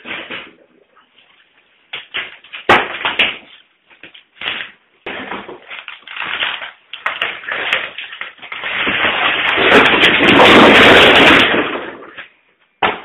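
Knocks and clattering of a wall being torn down by hand, with a long loud crash of falling debris about nine seconds in that lasts some three seconds.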